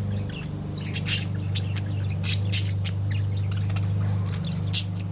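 Pet budgerigars chirping and chattering in short, sharp calls, over a steady low hum.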